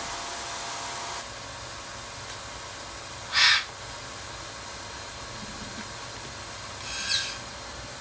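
Eclectus parrots calling over a steady hiss: one loud squawk about three and a half seconds in, and a shorter call falling in pitch near the end.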